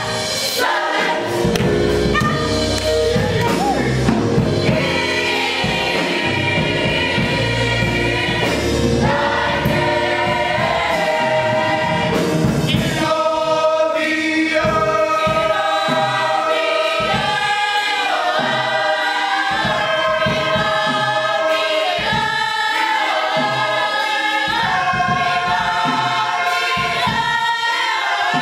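Gospel choir singing in full voice. For the first half a deep low part sounds under the voices; about halfway through it drops away, leaving the choir singing in short rhythmic phrases.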